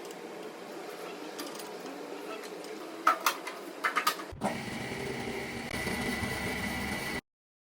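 Several sharp clicks and knocks, then an Axminster bandsaw running with a steady low motor hum and a thin high whine.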